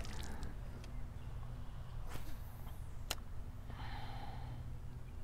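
A spinning rod being recast from the bank: a faint swish about two seconds in and a sharp click just after three, over a low steady rumble, with a soft hiss near the end.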